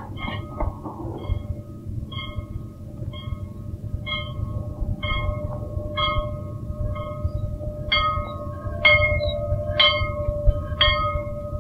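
A school bell being rung, one clear stroke about every second, growing louder over the last few seconds, over a steady low rumble.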